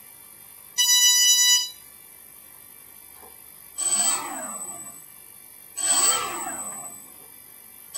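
Quadcopter electronic speed controllers sound a steady beep through the brushless motors about a second in. Then the brushless motors spin up twice with a high whine and slow down, falling in pitch, as the throttle is pushed and released; all motors start OK.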